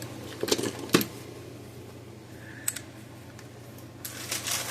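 A few light clicks and taps from small parts being handled on a workbench, with a short cluster of clicks near the end, over a faint steady hum.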